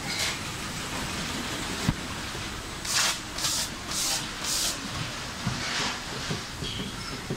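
Packaging machinery running with a steady mechanical noise, broken by four short hisses of compressed air about half a second apart in the middle and one more a second later, the air blasts of the machines' pneumatics. A sharp click about two seconds in.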